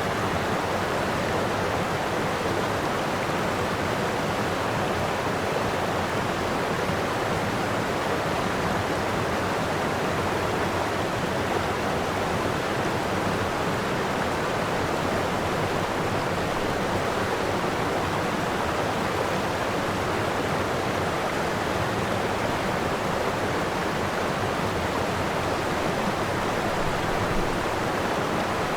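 Floodwater rushing steadily, a constant even roar with no breaks.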